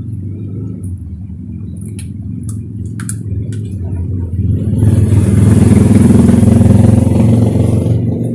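A motor vehicle's engine running close by over a steady low rumble. It swells to a loud peak about halfway through, holds for a couple of seconds and eases off near the end. A few short wet mouth clicks of chewing come before it.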